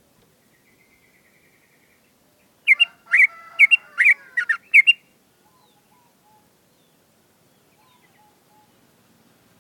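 Sooty-headed bulbul (trucuk) singing: a faint thin trill, then a loud burst of about six quick whistled notes lasting a couple of seconds.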